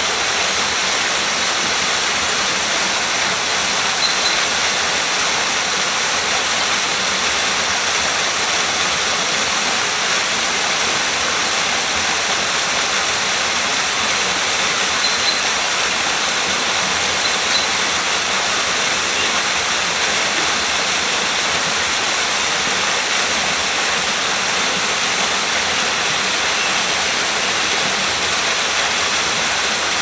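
Steady rush of running water, even in level throughout with no surges or pauses.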